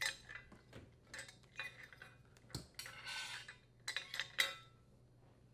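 Faint, scattered clicks and rattles, with a few brief scraping rustles, as the strain relief is worked off a dishwasher's power-cord terminal box and the old cord is pulled free.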